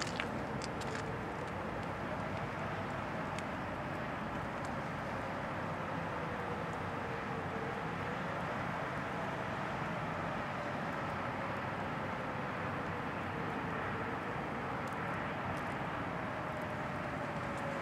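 Distant outdoor tornado warning sirens sounding during a siren system test: a faint, steady siren tone that slowly wavers up and down in pitch every few seconds, heard under a steady outdoor rush of noise.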